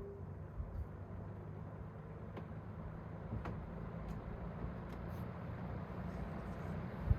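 Vintage Dominion box fan running on low speed: a steady rush of air over a low electric-motor hum, slowly growing louder.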